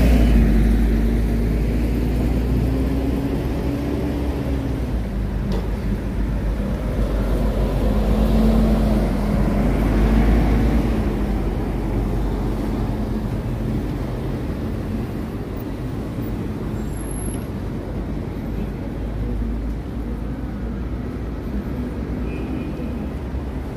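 City bus engine pulling away and accelerating through an intersection, a low rumble with a wavering engine note, loudest about ten seconds in, then fading into the hum of passing car traffic.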